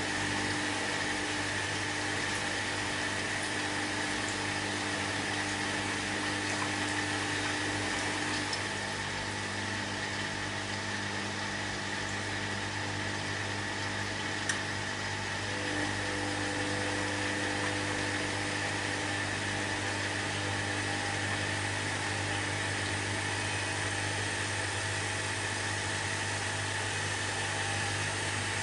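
Candy front-loading washing machine running through a wash: a steady motor hum with a high whine, one of its tones dropping out for several seconds midway and then returning.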